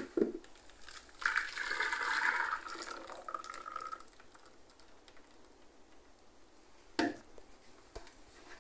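Frothy blended batter of milk, eggs and onion poured from a plastic blender jar into a plastic bowl, splashing for about three seconds and rising slightly in pitch as the pour ends. A brief knock comes about seven seconds in.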